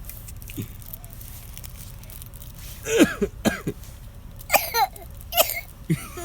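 A baby coughing on purpose, for play, in short voiced coughs. The coughs come in several separate bursts starting about three seconds in.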